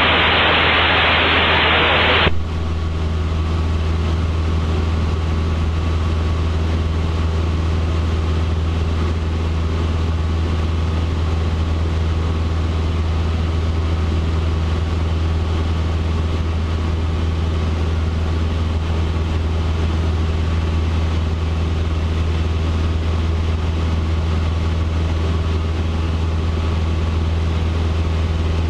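Cessna 150's Continental O-200 four-cylinder engine and propeller droning steadily in flight, heard inside the cabin. For about the first two seconds a loud burst of radio hiss plays over it and then cuts off sharply.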